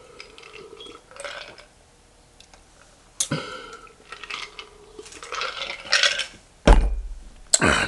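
Mouth and eating noises from a person at a meal, with light clatter of dishes and utensils. A loud thump comes near the end.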